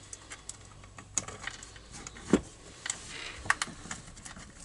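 Plastic and metal parts of a string trimmer being handled and fitted back together: scattered light clicks and taps, with a louder knock about two seconds in and a short run of clicks a little later.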